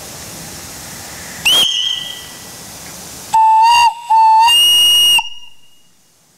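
Antique brass steam whistle on a scale-model logging donkey engine's boiler, blown with a hand lever: a short toot about a second and a half in, then three blasts in quick succession, the last the longest, over a steady hiss of steam that dies away near the end.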